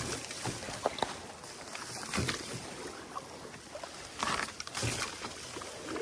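Wild rice stalks rustling and swishing against a canoe as it is poled through a dense rice bed, swelling in a few longer swishes, with a couple of light knocks of the wooden ricing sticks about a second in.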